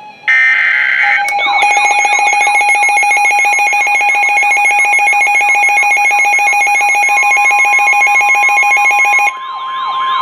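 Emergency Alert System weather radio alert: a short burst of screechy digital header tones, then a loud alert signal of a steady tone overlaid with rapid siren-like sweeps, repeating several times a second for about eight seconds. Near the end it drops in level and changes to faster sweeps over a higher steady tone.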